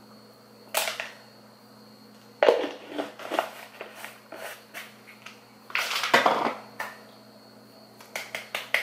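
Mouth noises of a person dry-scooping powdered pre-workout: scattered lip smacks and tongue clicks as she works the dry powder down, with a short breathy burst about six seconds in.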